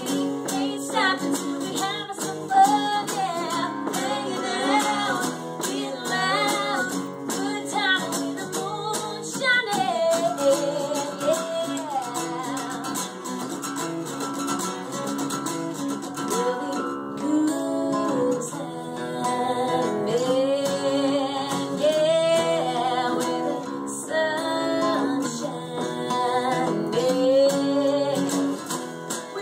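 A woman singing a song live, accompanied by a single acoustic guitar.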